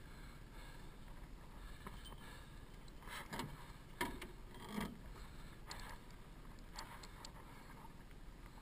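A few knocks and a sharp click from handling gear in a small aluminium boat, as the landing-net pole and measuring tape are moved about, over a faint steady background. The knocks fall in the middle of the stretch, the sharpest click and then a duller thump close together.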